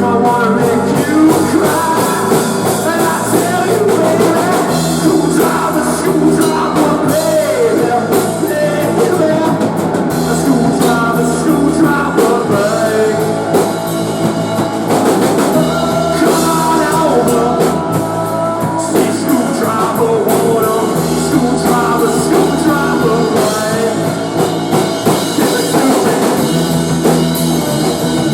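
Rock band playing a full-band section: drum kit, bass guitar and guitars, with a lead melody bending in pitch over the top and the bass line changing notes every second or two.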